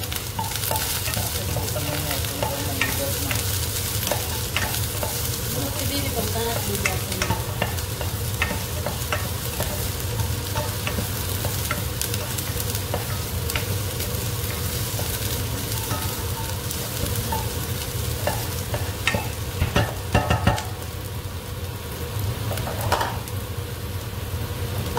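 Chopped garlic and onion sizzling in oil in a pot while a wooden spatula stirs, scraping and tapping against the pan. There are a few louder knocks about twenty seconds in, after which the stirring mostly stops and a gentle sizzle remains over a steady low hum.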